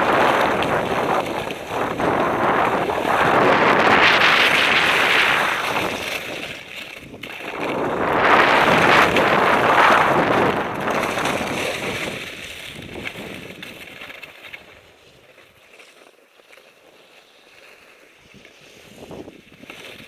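Telemark skis sliding over thin, bony snow cover, a rushing hiss mixed with wind on the microphone that swells twice with the turns, then fades as the skier slows to a stop near the end.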